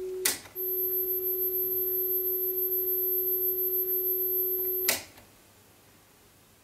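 Technics RS-B100 cassette deck's built-in calibration oscillator. A steady 400 Hz test tone breaks off with a click; after a brief gap the 400 Hz tone returns together with a high 12.5 kHz tone. Both stop with another click about five seconds in. These are the deck's test tones for record-level calibration and bias adjustment.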